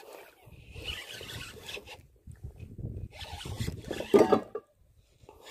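Spinning reel being cranked against a hooked fish on a bent rod, a rasping whir in two stretches with a short pause between them, the second getting louder before it stops near the end.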